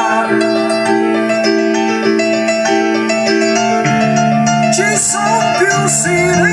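Background music: an instrumental stretch of a song with sustained keyboard chords and bell-like mallet tones, with a bass line coming in about four seconds in.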